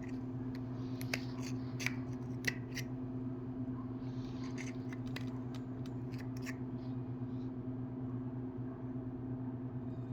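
Small sharp metal clicks and scrapes from a flathead screwdriver picking at the inside of a Zippo lighter. They come in two bursts, one in the first three seconds and another from about four and a half to six and a half seconds in, over a steady low hum.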